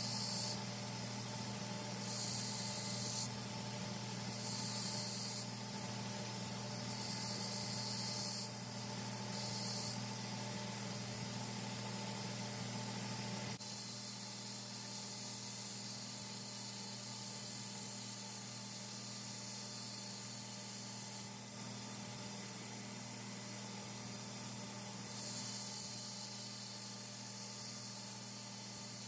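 Belt grinder running with a steady motor hum while a forged steel knife blade is pressed to the abrasive belt in repeated passes, the grinding hiss coming and going with each pass: the edge bevels being ground in. The passes come several times in the first ten seconds and again near the end.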